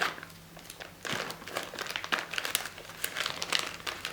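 Plastic Ziploc bags holding first-aid supplies crinkling and rustling as they are handled, in irregular bursts of crackle.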